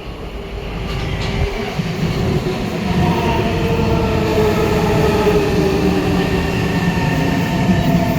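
C151 MRT train running, with a heavy rumble of wheels on rail. Its traction motors whine in several tones that slowly fall in pitch as the train slows.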